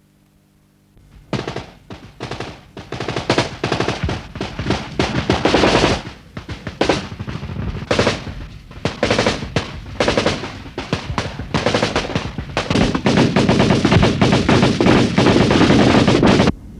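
Bursts of automatic gunfire. The fire starts about a second in, comes in rapid bursts with short pauses, becomes almost continuous near the end, then cuts off suddenly.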